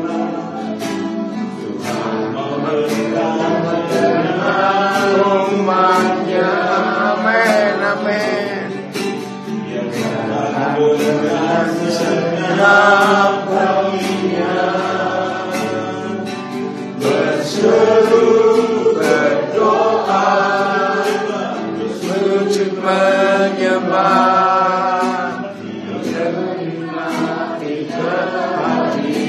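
A congregation singing a slow worship song together over sustained instrumental accompaniment with a steady beat.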